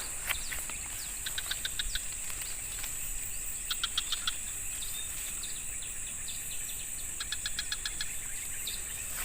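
Forest ambience: a steady high-pitched insect drone, with three short bursts of rapid repeated chirps from birds or insects, about eight notes a second.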